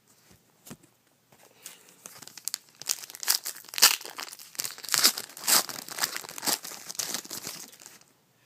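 A trading-card pack's wrapper being torn open and crinkled in the hands: a dense run of crackling and tearing that starts about a second and a half in, is loudest in the middle and dies away near the end.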